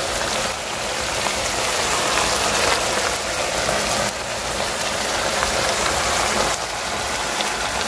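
Pork ribs braising in a thick soy-based sauce, bubbling and sizzling in a pot with a dense, steady crackle.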